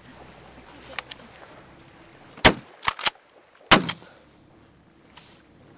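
Several shotgun blasts in quick succession, the two loudest about two and a half and nearly four seconds in, with a fainter crack about a second in and two quicker lighter ones between.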